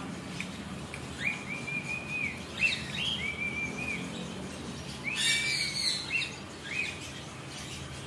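Rainbow lorikeet calling: a series of shrill whistled chirps, some held briefly at one pitch, with a louder, harsher screech about five seconds in.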